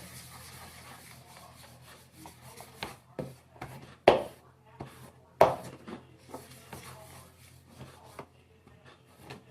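Tabletop cleanup: soft rubbing and wiping with scattered light taps, and two sharp knocks about four and five and a half seconds in.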